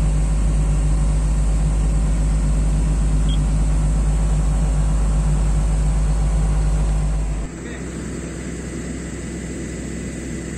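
Komatsu PC200 excavator's six-cylinder diesel engine running steadily, freshly valve-adjusted and running smoothly. About seven and a half seconds in, the sound suddenly drops to a quieter, lower running.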